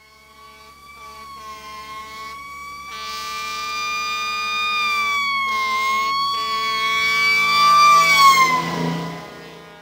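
Emergency vehicle siren approaching and passing, showing the Doppler effect. A held, slightly wavering siren tone grows steadily louder, then drops in pitch and fades as it goes by, near the end.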